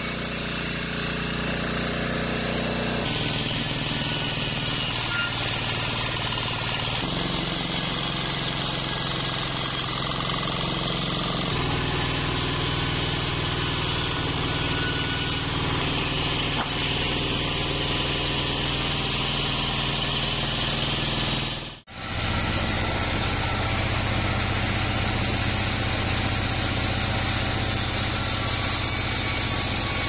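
Sawmill band saw (Bandsaw 36) running and cutting randu (kapok) logs into boards: a loud, steady whir of motor and blade. The sound shifts abruptly several times and drops out for a moment about two-thirds of the way through.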